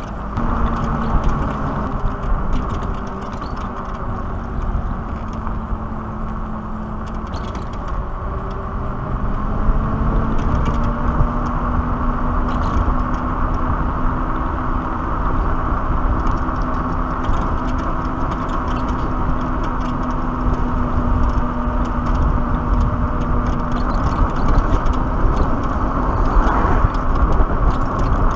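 Black Tea Bonfire X electric motorcycle on the move: wind buffeting the microphone and tyre noise on asphalt, with a faint motor whine that rises in pitch about ten seconds in as the bike speeds up, then holds steady.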